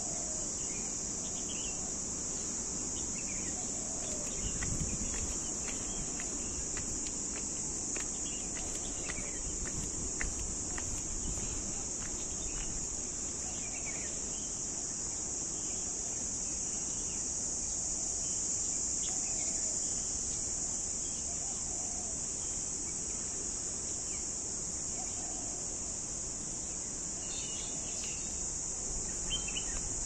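Steady, high-pitched chorus of insects droning without a break, with a few faint bird chirps scattered through it.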